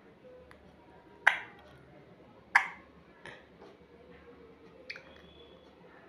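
A parrot making sharp clicks with its tongue or beak: two loud clicks a little over a second apart, then a couple of fainter ones.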